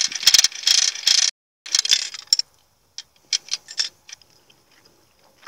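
Gumball-machine crank being turned, a ratcheting grind in two loud turns over the first two and a half seconds. A run of lighter sharp clicks follows about three seconds in.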